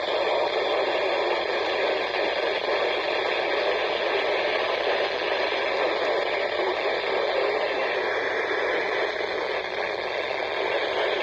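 Weather radio receiver hissing with steady static and no clear broadcast audio, as on a weak or noisy channel.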